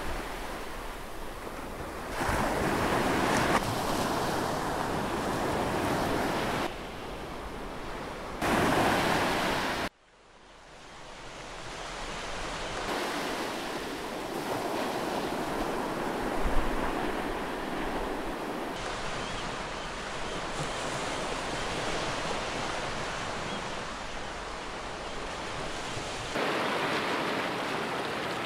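Ocean surf breaking, a steady rush of wave noise with wind on the microphone. It comes in pieces whose level changes abruptly, drops out about ten seconds in, and fades back up.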